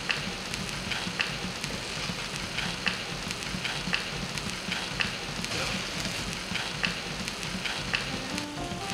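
Food sizzling and crackling in a frying pan, a steady hiss with irregular small pops.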